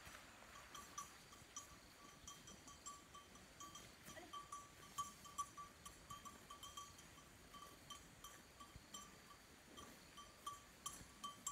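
Faint chirping from a small calling animal: short, high notes of one pitch repeating about three to four times a second over a quiet outdoor hiss.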